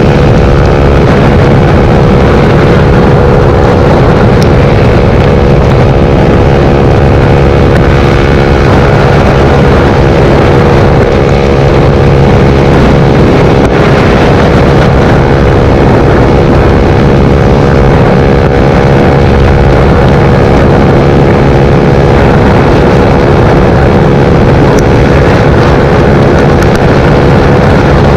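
Suzuki GSX-R125's single-cylinder four-stroke engine running steadily at a constant pitch, without revving up or down.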